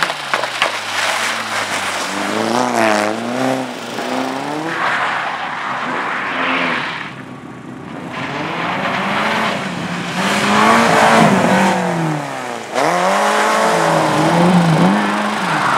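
Amateur rally car's engine revving hard and dropping back again and again as it is driven through tight turns, with tyre noise. The sound dips briefly just before halfway, then comes back and jumps louder about three-quarters of the way through.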